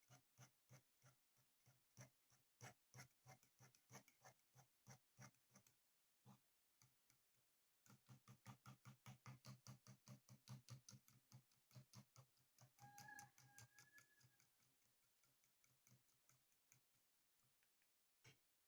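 A quiet, quick run of light, even taps, about four a second, pausing for about two seconds around the middle. A brief high, whistle-like tone sounds about thirteen seconds in.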